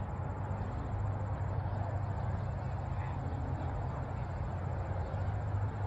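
Steady low rumble of open-air background noise, with no distinct events.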